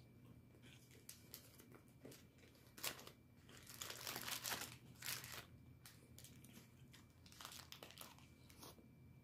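Faint crinkling and rustling of plastic food packaging being handled, heaviest in the middle.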